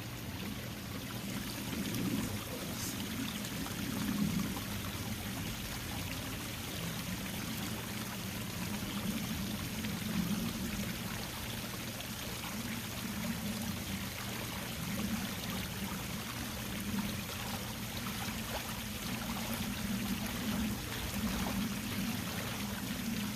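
Water flowing down a natural-boulder cascade waterfall fed by two hoses at about 400–500 gallons per hour. It is a steady rushing splash with an uneven low gurgle underneath.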